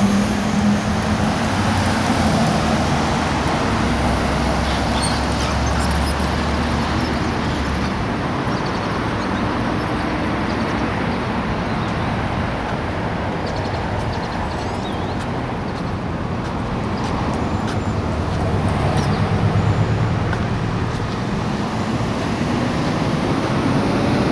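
Steady road noise from a moving vehicle: tyre and engine noise with a low hum that swells slightly for a moment past the middle.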